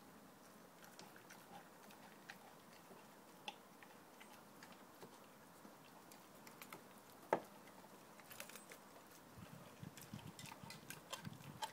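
Dog chewing and tugging at a raw steak in a metal bowl: faint scattered wet clicks, one sharper click about seven seconds in, and busier chewing near the end.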